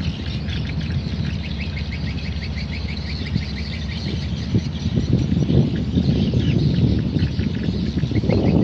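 Small birds chirping in quick, repeated calls over the steady low rumble of the tug boat's engine, the rumble growing louder in the second half.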